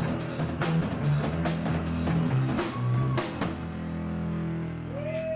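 Live rock band playing: electric guitars and a drum kit with steady drum hits. About three and a half seconds in, the drums stop and the guitars ring out on a held chord.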